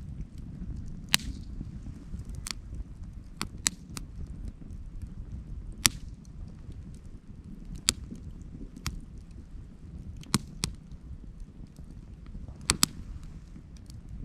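Campfire crackling: firewood giving sharp, irregular snaps and pops, roughly one a second and sometimes two in quick succession, over a low wind rumble on the microphone.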